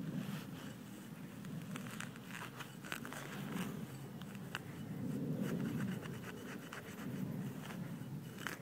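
Serrated hand digger scraping and cutting into grass turf and soil, with rustling of grass and a few sharp clicks, in uneven patches.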